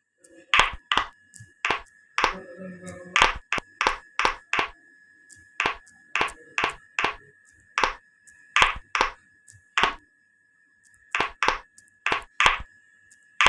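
A run of sharp clicks or taps, two to three a second with a few short pauses, over a steady high-pitched tone.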